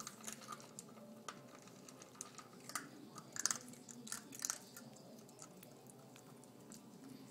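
Puppy eating dry kibble from a stainless steel bowl: irregular crunches and clicks, loudest in a cluster about halfway through.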